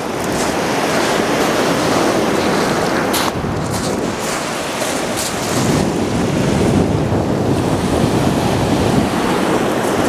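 Surf washing up over a shingle beach of small pebbles and draining back, swelling twice, with wind buffeting the microphone.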